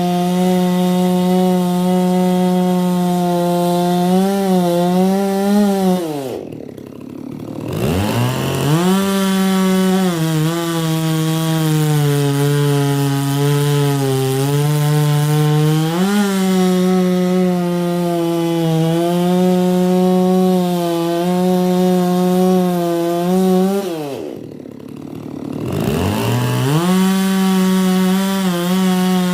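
Holzfforma G660 chainsaw, a 92 cc two-stroke clone of the Stihl MS660, running at full throttle through wood, its pitch sagging under load in the cut. Twice the throttle is let off so the engine falls briefly toward idle, then it revs straight back up.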